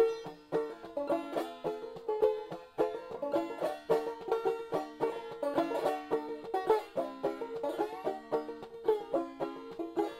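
Background music: a fast plucked-string tune in bluegrass style, led by banjo, with quick notes in a steady rhythm.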